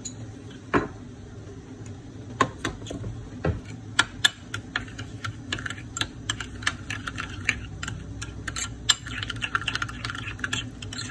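A spoon or chopsticks clicking against a bowl while a sauce is stirred and mixed: scattered sharp clicks at first, then several a second from about four seconds in.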